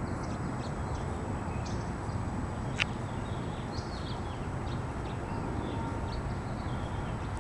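Steady outdoor background rumble with faint bird chirps scattered through it and one sharp click about three seconds in.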